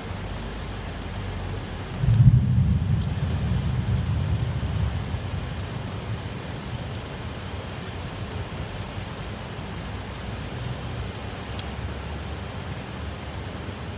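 Heavy rain falling steadily, with close drops ticking and splashing on a ledge. About two seconds in, a low rumble sets in suddenly and fades away over several seconds.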